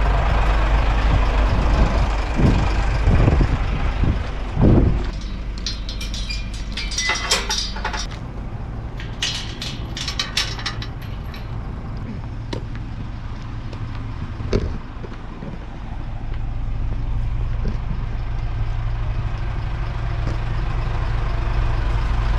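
Lorry engine running steadily with a low rumble, with a few knocks in the first seconds and a spell of sharp rattling clicks in the middle.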